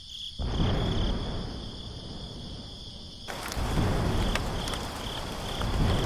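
Crickets chirping in a steady, pulsing high trill, joined just after the start by a low rushing noise, then from about three seconds in by the hiss of falling rain with scattered drop ticks.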